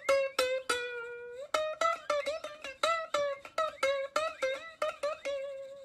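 Background music: a quick plucked-string melody, picked notes at about three or four a second with one longer held note about a second in.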